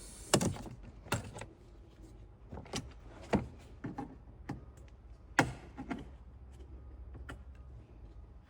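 Irregular sharp clicks and knocks of plastic push-in button clips being popped out and a plastic engine-bay cover panel being handled, with a short scrape at the start.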